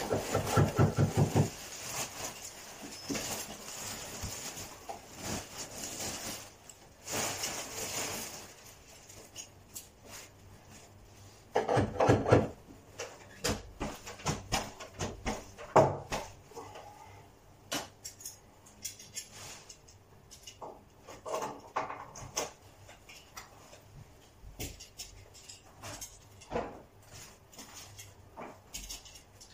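Intermittent knocks, clicks and clatter of hand tools being handled during carpet fitting, with a fast ratchet-like rattle in the first second and a half and a louder cluster of knocks about twelve seconds in.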